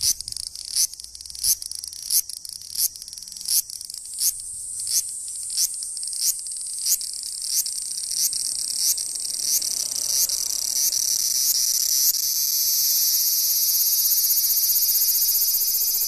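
Large brown cicada (aburazemi) calling at close range: a high, sizzling buzz pulsing about once every two-thirds of a second, the pulses coming closer together until, about twelve seconds in, they merge into one continuous drone.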